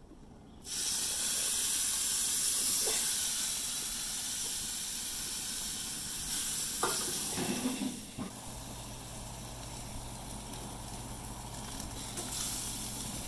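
Marinade-wet steak sizzling on a hot grill grate. The sizzle starts suddenly about a second in, with a few light knocks partway through, and drops to a quieter, steady sizzle after about eight seconds.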